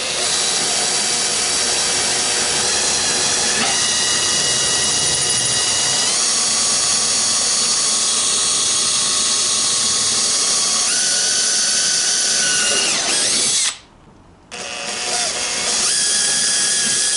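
Cordless drill running steadily as it bores a bolt hole through a clamped stainless gudgeon into the wooden panel behind it. The motor's whine shifts in pitch a few times, stops for about a second near the end, then runs on again.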